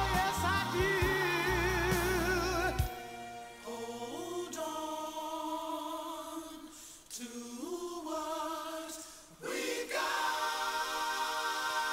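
Soul record with wordless sung harmonies. The bass and drums drop out about three seconds in, leaving held vocal chords that slide from note to note, and the full band comes back in near the end.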